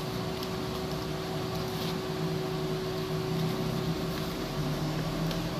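A steady machine hum with a constant low tone, and a few faint taps and scrapes as a tripod is worked out of its cardboard box.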